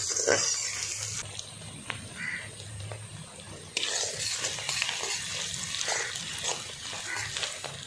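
Sliced onions sizzling in hot mustard oil in a kadai, stirred with a spatula, as they are fried until reddish-brown. The sizzle drops quieter for a couple of seconds about a second in.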